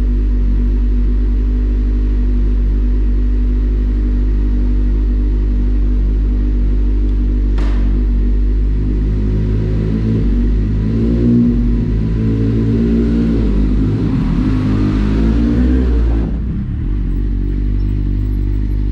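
Kawasaki Z750's inline-four engine through an Akrapovic exhaust with the dB killer removed, idling steadily, with one sharp click about eight seconds in. The engine then revs up and down as the bike pulls away, louder for several seconds before easing off near the end.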